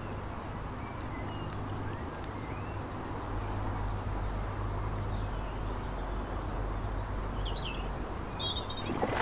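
Outdoor ambience: a steady low background rumble with scattered short chirps and twitters of small birds, and a few sharp knocks near the end.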